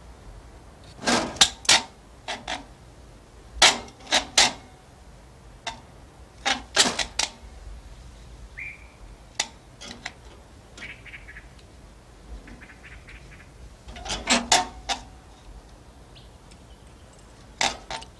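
Hard objects handled and knocked about: clusters of sharp clicks, clinks and knocks, two to four at a time with pauses between, as a metal key and the test apparatus are handled by an orangutan. A short high squeak near the middle.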